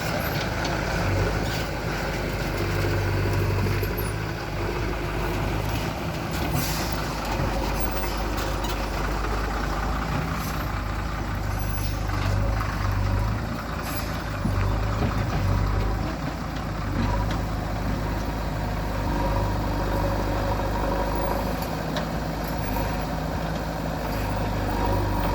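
JCB 3DX backhoe loader's diesel engine running under working load, its note swelling and easing, with scattered sharp knocks and clanks from the working machinery.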